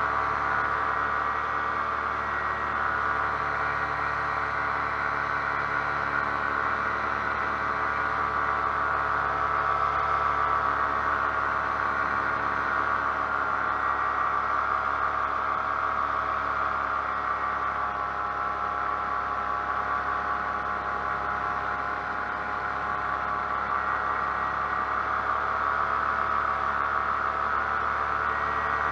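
Paramotor's two-stroke engine and propeller running steadily in flight, a continuous drone whose pitch sags slightly and recovers about two-thirds of the way through.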